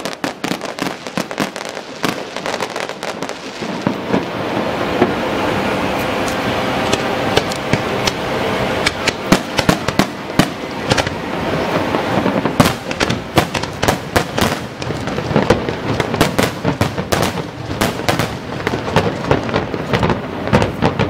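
Aerial fireworks shells bursting: a continuous mass of crackling with many sharp bangs in quick succession, coming thicker and faster in the second half.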